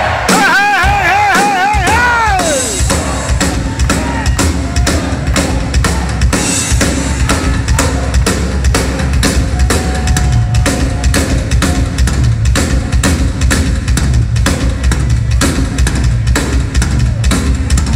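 Live rock drum kit played solo and loud: rapid strokes on bass drum, snare and cymbals. In the first couple of seconds a wavering held note rings out over the drums and fades.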